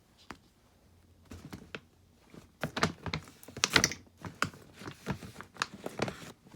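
Small plastic toy figures being handled and set down: a run of light clicks and knocks, most of them in the second half, the loudest about the middle.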